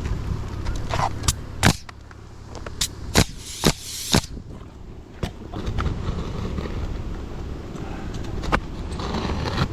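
Shingling work on a roof: a string of about eight sharp shots and knocks, bunched in the first half, over a steady low rumble of wind.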